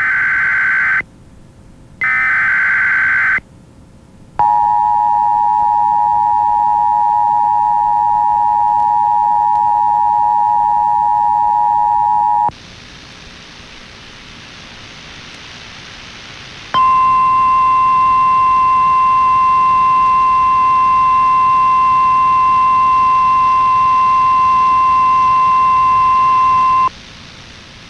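Emergency Alert System interruption of a radio broadcast, signalling a severe thunderstorm warning. The end of the screechy data header comes first, as two short warbling bursts. Then the steady two-tone attention signal sounds for about eight seconds, a few seconds of hiss follow, and a single steady weather-radio alarm tone runs for about ten seconds.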